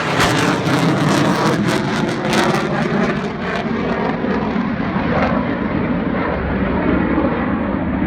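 Military fighter jet flying past close by with loud, crackling jet noise. Its pitch falls and the high end fades as it moves away.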